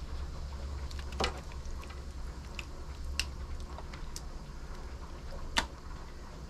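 Thick, wet tomato and refried-bean mixture scraped with a spatula out of a stainless steel bowl and plopped into aluminium foil pans, with a few sharp taps and clicks of the utensil against bowl and foil, the sharpest about five and a half seconds in. A low steady hum runs underneath.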